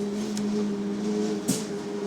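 Electric bus under way, heard from inside: a steady two-tone hum from the electric drive over road noise, with a sharp knock about a second and a half in.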